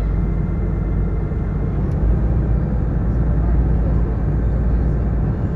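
Steady low rumble of a harbour sightseeing boat's engine, heard on board, growing heavier in the bass about two seconds in.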